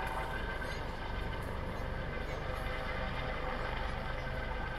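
Steady mechanical drone with a whine of several held tones over a rumbling low end, unchanging throughout.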